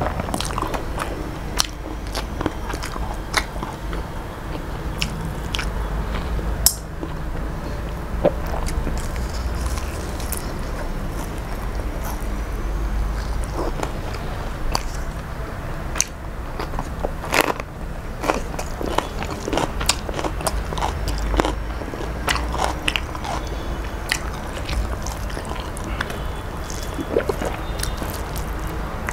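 Close-up chewing of a meal of shrimp pulao and fried fish eaten by hand, with irregular sharp crunches and wet mouth clicks throughout, over a low steady hum.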